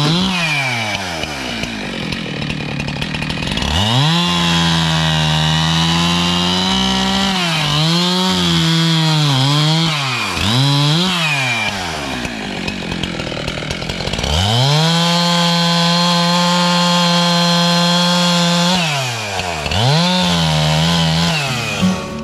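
Two-stroke chainsaw running, revved up to full throttle and dropped back toward idle several times. It is held at full speed for a few seconds twice.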